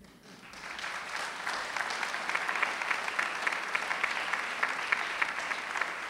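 Audience applauding, swelling in over the first second or so and then holding steady.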